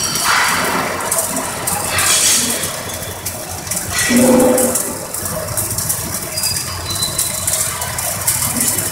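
Yaskawa robotic arc welding: the welding arcs crackling and sputtering steadily as they lay a bead, with a brief tone about four seconds in.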